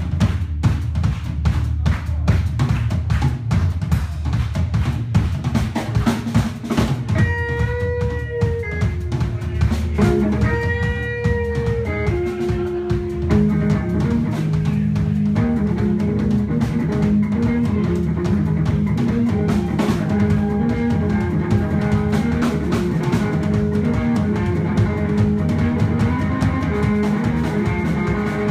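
Live rock played on a drum kit and an electric guitar. The drums play hard and busy at first. About seven seconds in, the guitar holds two long notes. From about thirteen seconds, guitar and drums settle into a steady groove together.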